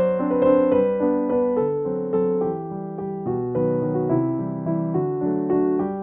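Background piano music: a melody of sustained notes.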